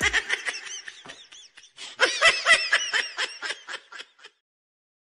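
Recorded laughter: a run of quick, high-pitched giggles and snickers that breaks off about four seconds in.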